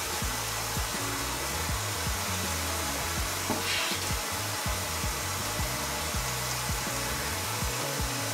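Kitchen faucet running steadily into a stainless steel sink while hair is shampooed and rinsed under it, with soft background music and its bass line underneath.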